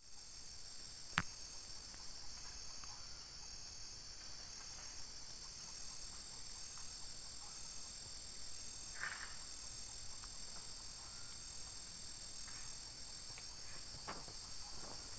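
Steady, high-pitched chorus of forest insects, with a single sharp click about a second in.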